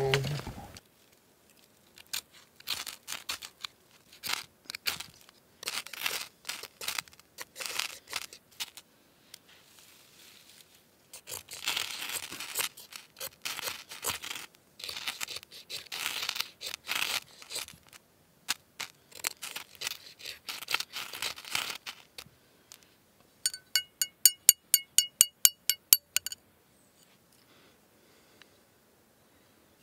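A knife spine scraped again and again down a ferrocerium rod, striking sparks into dry pine-needle tinder: a long series of short rasping strokes with pauses between them. Near the end comes a quick, even run of about a dozen sharp metallic ticks, each with a ringing tone, lasting a couple of seconds.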